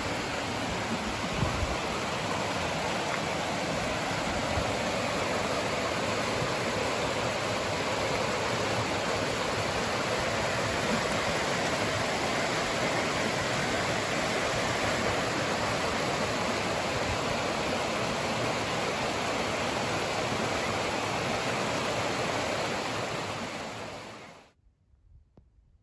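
Creek water rushing and splashing over rock slabs and boulders in small cascades: a steady, even rush that cuts off about a second before the end.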